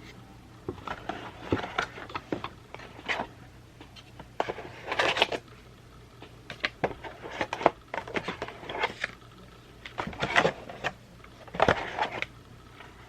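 Packaging from a video doorbell's box being handled: irregular bursts of rustling with sharp clicks and knocks, loudest about five, ten and twelve seconds in.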